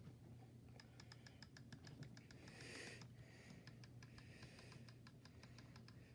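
Logitech G502 Hero gaming mouse's side thumb buttons being clicked over and over: a run of faint, sharp clicks, several a second.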